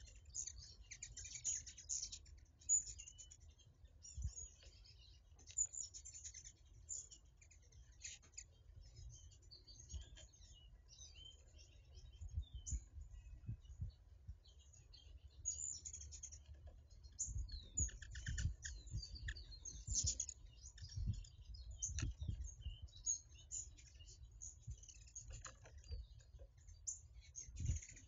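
Small birds chirping and twittering in short, scattered calls, with occasional low thumps.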